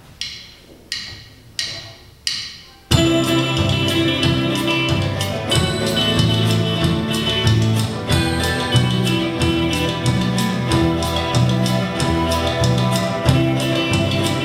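Instrumental intro of a Soviet-style vocal-instrumental ensemble pop song. Four separate struck beats, each dying away, count the song in. The full band then enters about three seconds in, with a steady drum beat over bass and chords, and no singing yet.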